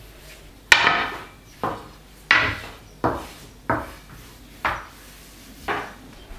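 Long thin wooden rolling pin rolling out a sheet of dough on a glass tabletop: seven strokes about a second apart, each starting with a sharp knock and trailing off.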